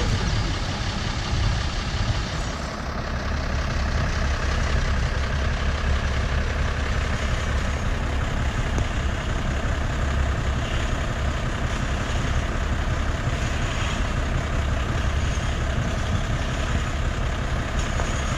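Heavy truck engine idling: a steady low rumble.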